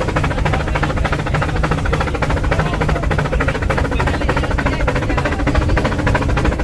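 Mountain rack-railway steam locomotive puffing steadily, a rapid, even beat of exhaust chuffs over a low rumble.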